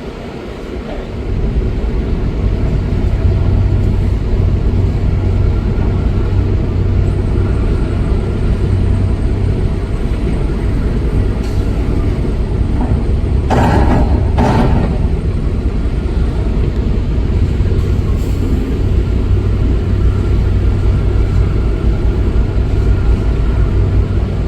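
Heavy diesel engine of earthmoving machinery running steadily under load, getting louder about a second in. Two short rushing bursts of noise come about halfway through.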